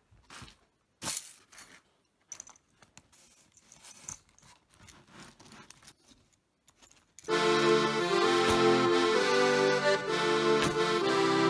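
Faint clinks and knocks of steel plate and riveted rings as mild-steel sabatons are handled and set down on a floor. About seven seconds in, background music with steady sustained tones starts suddenly and is the loudest sound.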